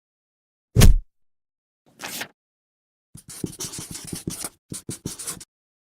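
A single heavy thump about a second in, a short soft rustle, then a couple of seconds of irregular scratching and clicking.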